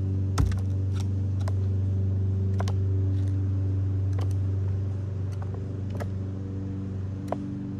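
Steady low mechanical hum made of several held tones, from a motor or engine running close by. Scattered sharp clicks and taps sound over it, with a thump about half a second in.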